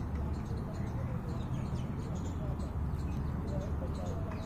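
Outdoor ambience: a steady low rumble with a few faint, brief voice-like sounds.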